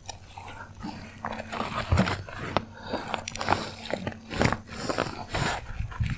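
Irregular knocks and thumps of a large peacock bass being handled and held down on the boat deck, the fish flapping against the deck and measuring ruler, with louder thuds about two seconds in and again between four and a half and five and a half seconds.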